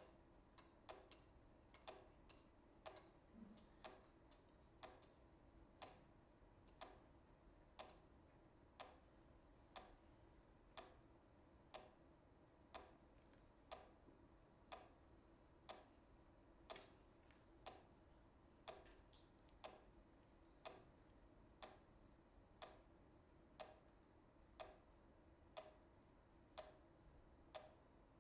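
Pyramid metronomes ticking faintly. For the first few seconds a second metronome ticks alongside at a different tempo; after that a single metronome ticks on steadily, about once a second.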